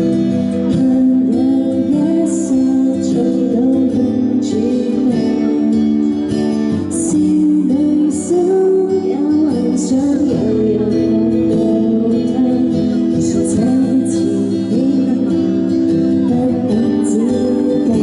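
A female pop singer singing a ballad live through a handheld microphone and PA, over a steady musical accompaniment.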